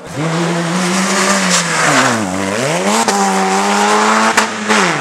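Rally car engine running hard at high revs. The pitch falls steeply about two seconds in as it comes off the throttle for a corner, then rises again as it accelerates away. A few sharp cracks sound over the engine.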